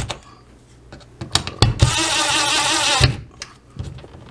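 Cordless impact driver driving the screw of an in-wall cable pass-through plate. It runs in one whirring burst of about a second, about two seconds in, with small handling clicks before and after.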